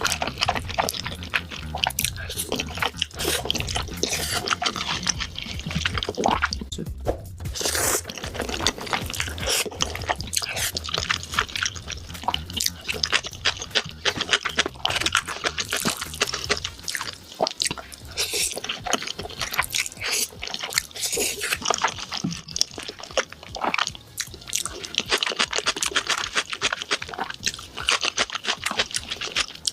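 Close-miked eating of black bean noodles (jajangmyeon): wet chewing with many quick, sticky mouth clicks.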